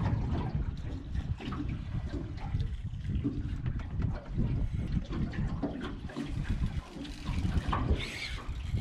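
Water lapping and sloshing against the hull of a small boat, with uneven low rumbling and small splashes.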